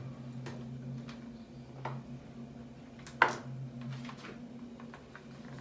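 Kitchen objects handled on a counter: a few light clicks and knocks, with one sharper knock about three seconds in, over a steady low hum.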